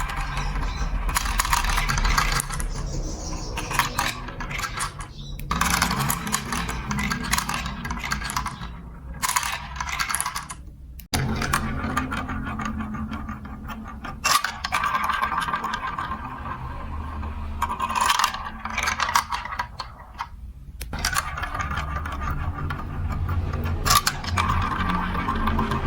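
Marbles rolling along plastic building-block marble run tracks, a steady low rumble with clinking and rattling as they drop and knock against the pieces, in short clips that change abruptly every few seconds.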